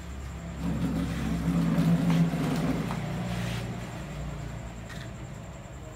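Low engine rumble of a passing motor vehicle, swelling over the first two seconds and then fading away.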